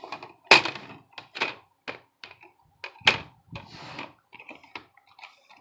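Plastic screen bezel of an HP 2000 laptop being pried off by hand: a series of sharp clicks and snaps as its clips let go, the loudest about half a second in and about three seconds in, with a brief plastic rustle near four seconds.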